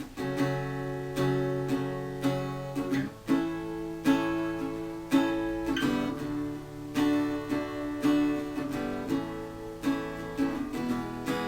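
Acoustic guitar strummed in a slow, even rhythm, about one chord stroke a second, with no voice yet.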